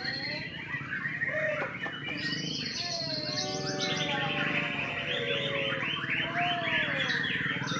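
White-rumped shama (murai batu) singing: varied whistled phrases, then from about three seconds in a fast run of sharp repeated notes, the rapid-fire 'tembakan' part of its song.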